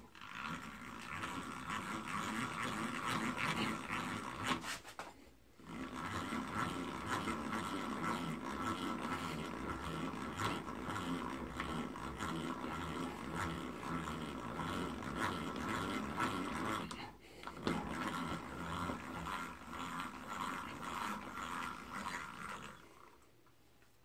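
Restored two-speed enclosed breast drill being hand-cranked, its gears whirring with a steady grinding tone. It stops briefly twice and ends about a second before the end.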